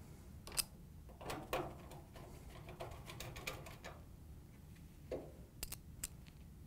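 A quarter-inch nut driver turning a screw into a dryer's sheet-metal panel: faint small clicks and scraping, with a few sharper clicks, two of them close together near the end.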